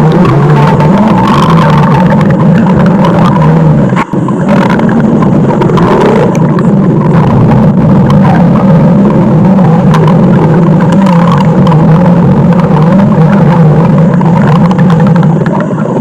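Stomach-growl sound effect: a loud, continuous, rumbling growl with a brief break about four seconds in.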